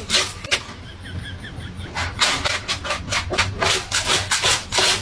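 A cat digging and scratching in a plastic litter box of green pellet litter, its paws raking and flinging the pellets. The scratches start sparse, then grow louder and quicker from about two seconds in, at about three or four a second.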